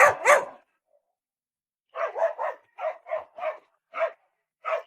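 Dog barking: two loud barks at the start, then after a short pause a quicker run of about eight barks.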